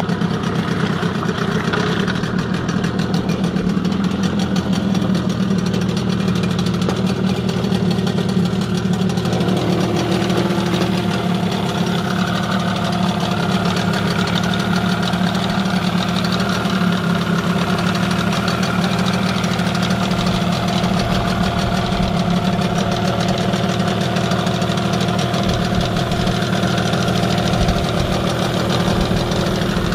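1981 Yamaha 15C 15 hp two-cylinder two-stroke outboard motor running steadily on a test run in a bin; its note shifts slightly about ten seconds in.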